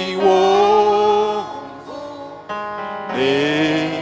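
Worship singing: a voice holding long, drawn-out notes over steady instrumental accompaniment.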